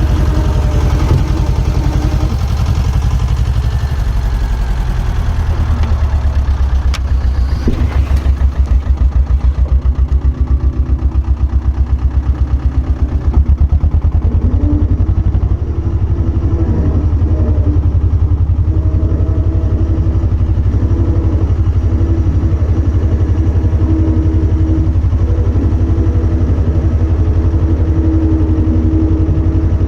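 Diesel engine of a piece of construction plant running steadily and loud. For a few seconds in the middle it takes on a heavier pulsing throb, and there is a sharp click about seven seconds in.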